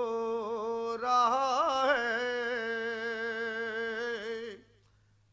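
Male voice singing an Urdu naat without accompaniment, holding a long drawn-out vowel at the end of a line. About a second in it swells and wavers through a run of ornaments, then holds steady and stops about four and a half seconds in.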